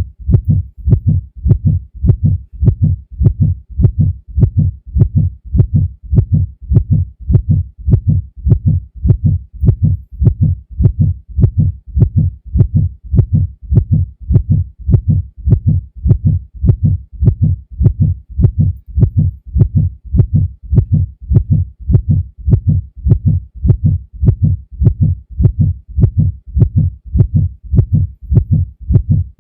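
Heartbeat sound effect: low lub-dub double thumps repeating in a steady, even rhythm that does not change.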